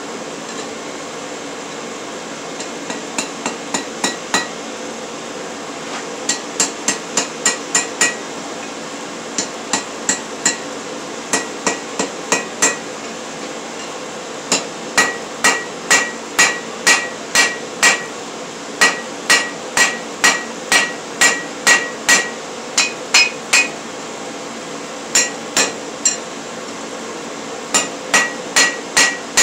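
Hand hammer striking a red-hot bar on a steel anvil, forging by hand in runs of blows at about two a second with short pauses between. Each blow rings.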